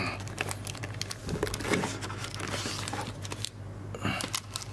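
Board-game pieces and cardboard being rummaged through by hand in the game box's compartments: irregular rustling with many light clicks and knocks.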